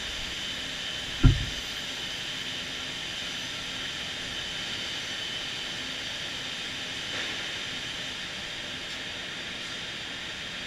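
Steady mechanical hiss with a faint high whine from a Homag BAZ CNC woodworking processing center, with a single short low thump about a second in.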